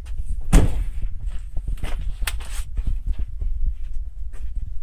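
Steel rear differential cover being fitted against the axle housing by hand: one loud metal knock about half a second in, then scattered lighter clicks and taps as it is seated, over a steady low rumble.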